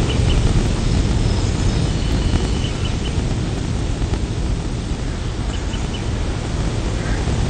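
Steady outdoor ambience: an even rushing hiss over a low rumble, with a few faint, short bird chirps now and then.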